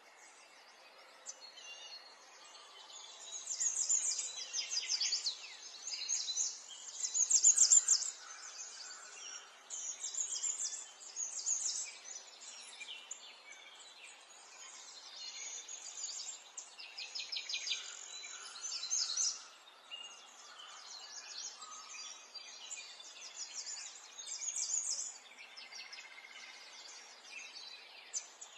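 Domestic electric sewing machine stitching in short runs of one to two seconds, stopping and starting again, its needle making a fast, light ticking clatter.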